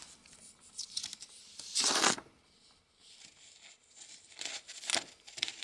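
Glossy paper brochure rustling and crinkling as it is handled and opened, with a louder crinkle about two seconds in and more rustling near the end.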